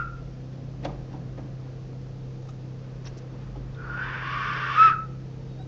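A whistle blown once, about four seconds in: a breathy rush of air lasting about a second that ends in a short shrill tone. A steady low hum runs underneath.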